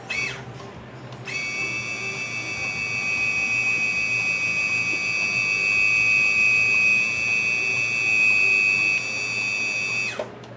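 BMW R1150RT's ABS brake servo pump whining steadily with the ignition on and the rear brake pressed, pushing fluid through the rear brake circuit while it is flushed. A short rising chirp comes first; the steady high whine starts about a second in and falls in pitch as the pump winds down near the end.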